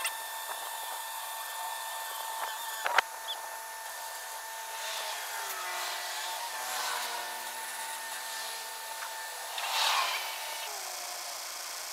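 Tow truck winch running as it pulls a pickup truck out of a pond on a cable: a steady whine that shifts lower in pitch about halfway through. A single sharp knock about three seconds in, and a brief rougher burst near the end.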